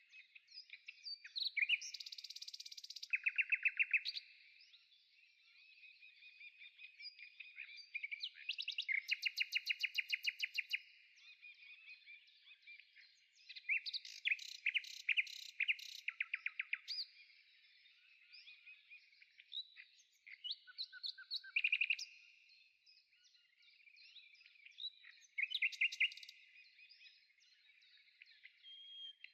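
Songbirds singing: chirps and fast trilled phrases of rapidly repeated notes, coming in bursts every few seconds.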